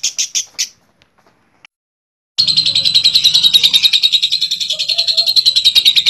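Lovebirds 'ngekek': a long, rapid, evenly pulsed high chattering trill that breaks off less than a second in. After a short silence, a second long ngekek trill starts abruptly and runs on.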